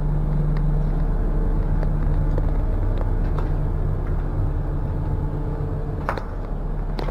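A steady low mechanical hum with a few faint clicks on top, the clearest about six seconds in.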